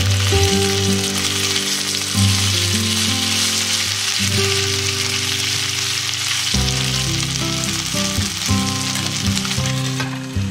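Chicken breast pieces sizzling as they fry in olive oil in a nonstick pan, with background music underneath. Near the end a lid goes on and the sizzle drops and turns muffled.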